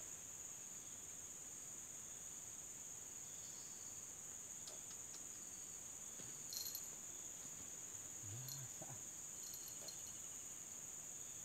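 Steady high-pitched drone of insects in the riverbank vegetation, with a few faint clicks and rustles, the loudest about six and a half seconds in.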